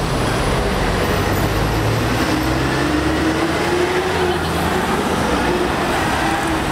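Busy city street traffic: the engine of a heavy vehicle, such as a bus or lorry, running close by over a steady rumble, its note rising slowly for a couple of seconds in the middle.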